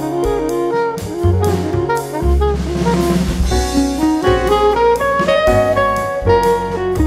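Background music: an upbeat jazz tune with saxophone-like lead notes over bass and a drum kit.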